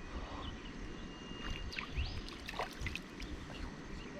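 Water splashing and sloshing as a hooked fish is played and drawn in toward the bank, with a few faint clicks.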